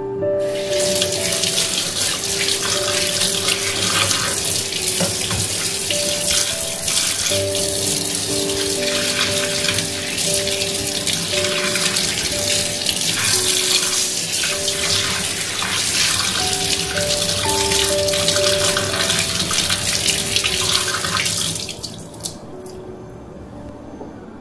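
Kitchen mixer tap running onto hands at a sink, with water splashing as the hands are rinsed. The water starts about half a second in and stops about three seconds before the end. Soft piano-like background music plays throughout.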